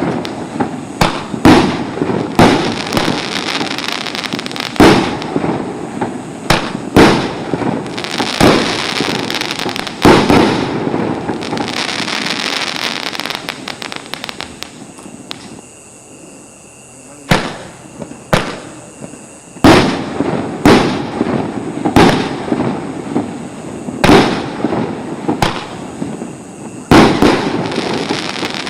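Consumer firework battery (multi-shot cake) firing: a run of sharp bangs with noisy decays, a lull about halfway, then more shots.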